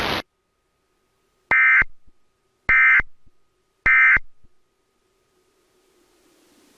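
Emergency Alert System end-of-message code: three short, identical bursts of warbling digital SAME data tones about a second apart. They mark the end of the alert message.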